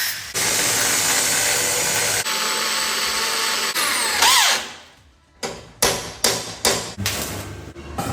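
Power drill running under load, likely boring into the metal door for the lock fitting, with a brief break, then spinning down about four and a half seconds in. After a short pause come a series of sharp knocks, about two or three a second.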